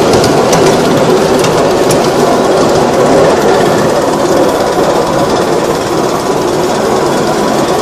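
Ride-on miniature railway train running along the track, heard from aboard: a loud, steady rattle and clatter of wheels on the small-gauge rails, with a few sharp clicks in the first two seconds.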